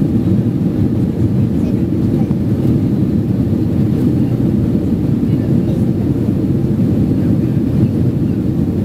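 Steady cabin noise of a Boeing 767-300ER in flight, heard inside the cabin at a window seat: a loud, even, low roar of engines and airflow that does not change.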